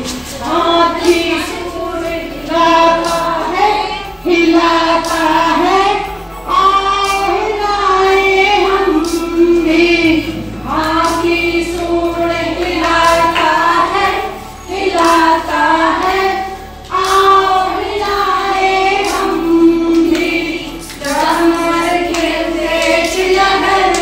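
A group of women singing a Hindi children's action rhyme together in short, repeating phrases, with hand claps keeping the beat.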